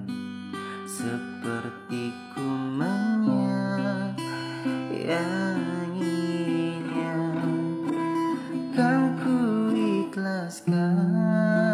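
Steel-string acoustic guitar played in slow, ringing chords, with a man's wordless singing gliding over it in a few phrases. The guitar cuts out briefly near the end before coming back in.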